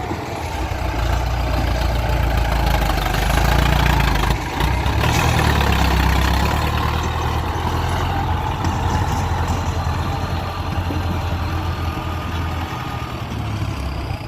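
Ford 6610 tractor's four-cylinder diesel engine running steadily, with a brief dip about four and a half seconds in.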